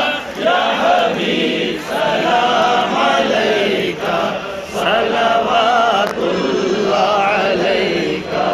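A crowd of men chanting a devotional salutation together in unison, many voices in phrases a second or two long with short breaks between.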